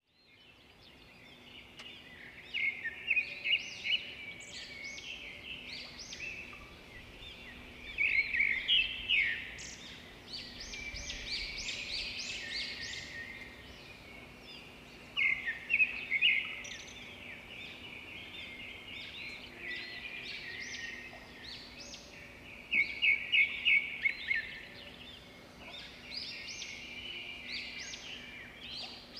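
Birds singing and chirping: high, rapid chirps in louder bursts every six or seven seconds, with quieter twittering between.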